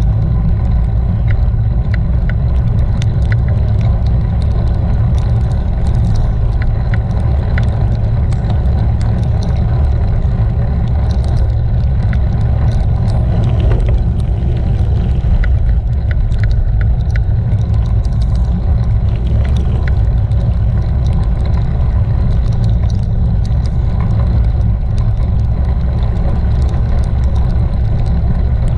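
Steady low rumble of wind buffeting a camera microphone on a moving bicycle, riding in rain on a wet road, with the hiss of tyres on wet tarmac and scattered light ticks throughout.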